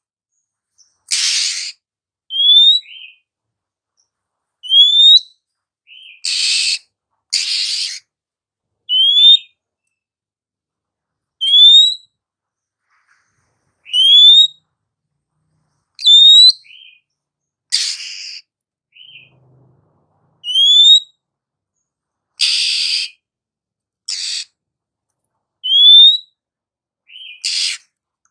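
Female oriental magpie-robin calling: a clear rising whistle repeated about every two seconds, each followed by a short lower note, with harsh raspy calls in between.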